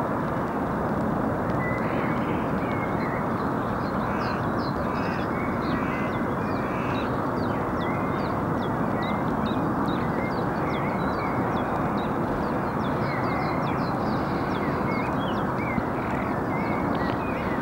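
Dawn chorus of birds: many short, high chirps and calls over a steady rushing background noise.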